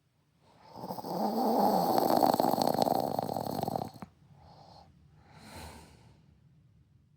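A woman snoring heavily: one long, rough snore of about three seconds that cuts off suddenly, followed by two soft breaths.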